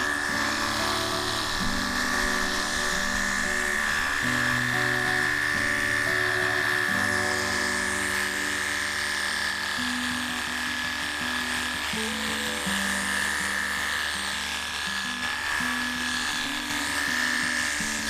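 Xiaomi Mijia cordless car-wash gun's electric pump running with a steady high whine and the hiss of its water spray, under background music.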